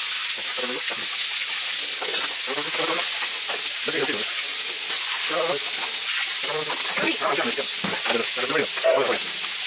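Kitchen tap running steadily into a stainless-steel sink while steel dishes are rinsed under it.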